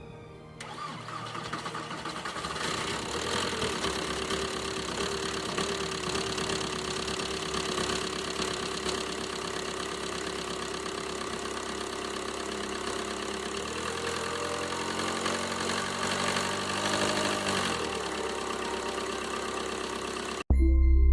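A 1999 VW Golf's ALH 1.9 L four-cylinder turbodiesel starting from cold, catching about half a second in and settling into a steady idle. The pitch shifts a little near the end before the sound cuts off suddenly.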